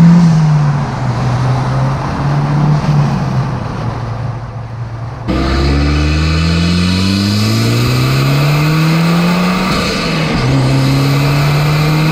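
Mazdaspeed6's turbocharged 2.3-litre four-cylinder with an aftermarket Cobb intake, turbo and intake noise audible. It runs steadily at first, then from an abrupt change about five seconds in it accelerates hard, pitch climbing, dropping at a gearshift near ten seconds and climbing again.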